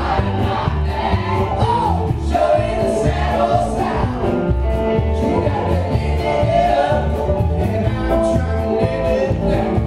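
Live country band playing a song: bowed fiddle, guitar, upright bass and drums with a steady beat, under singing voices.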